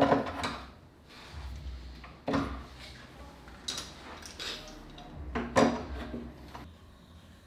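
Metal bar clamps clanking and rattling as they are hung one by one on a plywood rack. There are three main knocks, at the start, about two seconds in and about five and a half seconds in, with lighter clinks between.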